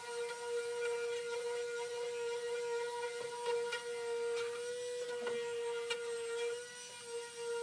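Corded electric palm sander running steadily with a constant hum, scuff-sanding a wooden hutch with 220-grit paper to take off the glossy finish. A few light clicks and taps sound over it.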